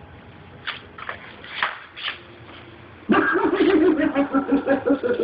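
A few faint rustles and taps, then a loud pitched sound starting abruptly about three seconds in and pulsing several times a second: the scary prank sound effect played from a hidden speaker under the bed.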